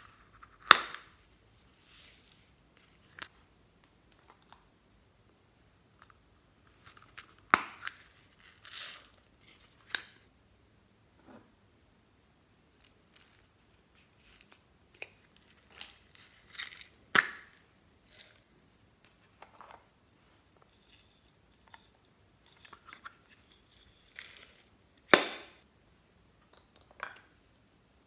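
Hollow plastic toy containers being handled and opened, with a few sharp plastic clicks several seconds apart, as of lids and halves snapping, and soft rustling in between.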